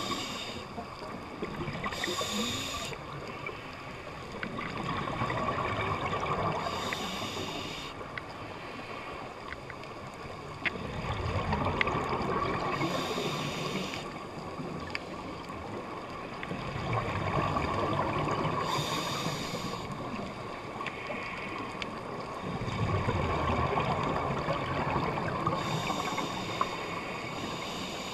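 Scuba diver breathing through a regulator, heard underwater: a short hiss on each inhalation alternating with a longer, rougher rush of exhaled bubbles, one breath about every six seconds.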